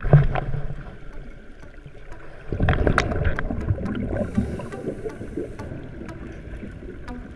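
Underwater sound of a scuba diver's breathing: a low bubbling rumble of exhaled air, strongest briefly at the start and again from about two and a half seconds in, with scattered sharp clicks.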